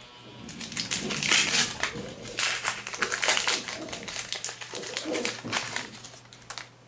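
Plastic wrapper of a basketball sticker packet being torn open and crinkled by hand: a dense run of sharp crackles and rustles, fading out near the end.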